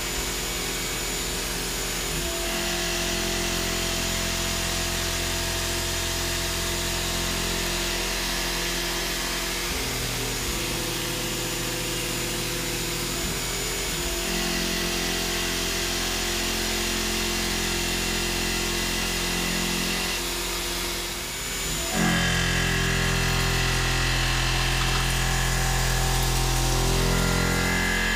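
Tormach PCNC 1100 CNC mill cutting aluminum with a SuperFly fly cutter, facing the top of a large strap-clamped disc. It makes a steady, pitched cutting hum whose note changes a few times and grows louder for the last several seconds. There is no chatter: it sounds great, a sign that the part is held rigidly.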